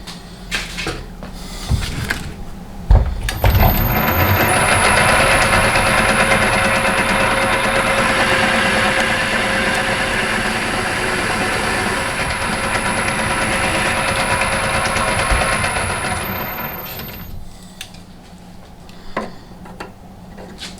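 Myford Super 7B lathe started up after a few clunks, running steadily under power with its gears meshing and a constant high whine for about thirteen seconds, then switched off and running down.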